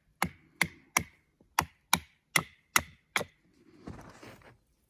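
A wooden baton strikes a wooden wedge driven into a knife cut in a block of wood, splitting the wood. Eight sharp knocks come about two and a half a second, then a second or so of quieter rustling near the end.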